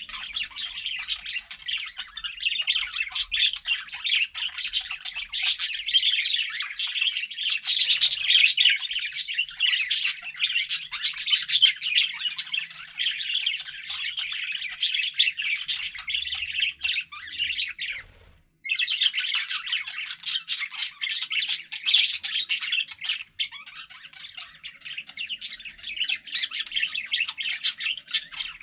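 Budgerigars chattering and chirping together: a continuous, dense warble of many short chirps and squawky notes. It breaks off for about half a second roughly two-thirds of the way through.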